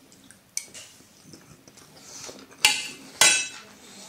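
Metal spoon knocking against an enamel pot while salad is scooped: a light click under a second in, then two loud clinks about half a second apart near three seconds in, the second one ringing.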